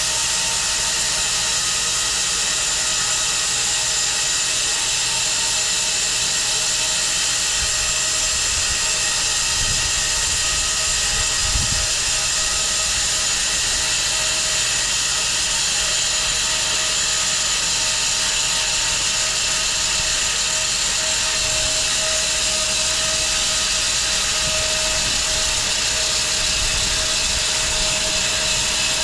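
Home-built 6 ft wide bandsaw mill running steadily as its blade saws through a walnut log, a constant high whine over hiss, with a brief low knock near the middle.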